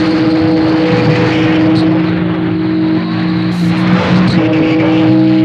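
CB radio receiver putting out loud, steady static with several steady droning tones over it: an open carrier keyed over the channel, blocking the talk.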